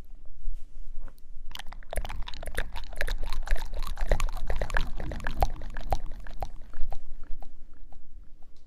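Close-miked ASMR mouth sounds: many quick wet clicks and smacks, densest from about one and a half to six seconds in, then thinning out.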